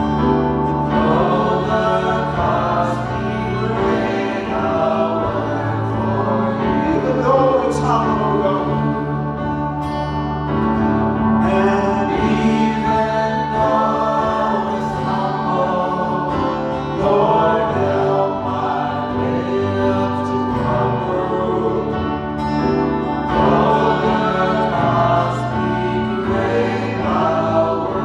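Worship music: voices singing a slow gospel song over held instrumental chords.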